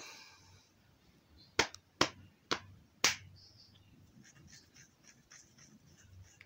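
Four or five sharp, loud snaps or clicks in quick succession, then faint quick ticking.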